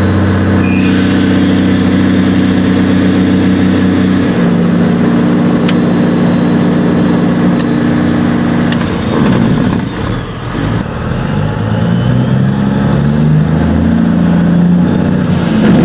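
Diesel truck engine with its compression (Jake) brake on, heard from inside the cab: a loud, rapid, chopped drone at a steady pitch. The sound drops and breaks up about nine seconds in, then the engine note climbs near the end.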